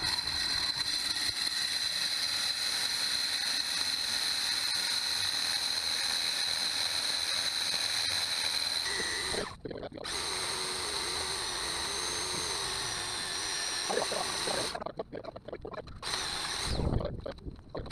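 Electric diamond core drill with water feed running steadily with a high whine as it bores through a concrete curb for a pipe hole. It cuts out briefly about halfway, runs again, and stops about three seconds before the end, followed by rough handling noise.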